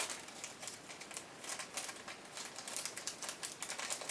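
Rapid light clicking and rattling of small hard parts being handled and sorted by hand.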